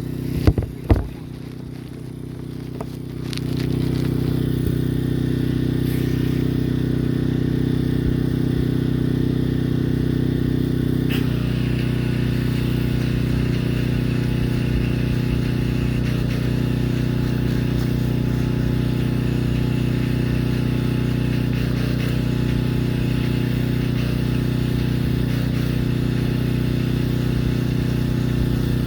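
Gas-engine pressure washer running steadily with the hiss of its high-pressure spray, after two sharp knocks near the start. The sound grows louder about three seconds in, and the engine's note shifts about eleven seconds in.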